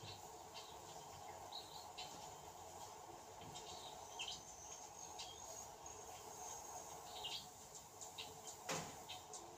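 Faint outdoor ambience: scattered short, high chirps and a brief thin whistle over a steady low hiss, with one sharp click near the end.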